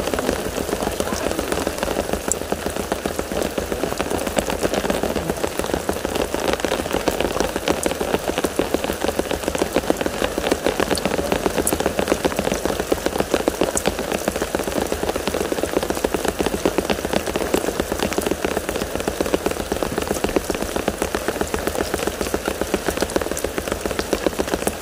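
Steady rain falling, a dense, even patter of many drops with no let-up.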